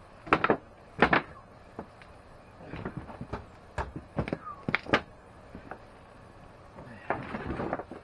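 Charred wooden boards knocking against a wooden deck as they are moved: two loud thunks within the first second or so, then lighter knocks and clicks, and a short rush of noise near the end.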